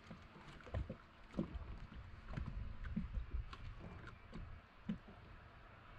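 Small waves lapping and knocking irregularly against the hull of a fishing boat, about twice a second, over a low rumble.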